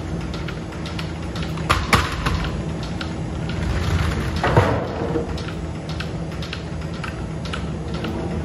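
Sawmill machinery running with a steady hum, while lengths of beech lumber are slid and dropped on the wooden deck: two sharp wooden knocks about two seconds in and a louder knock and scrape around the middle.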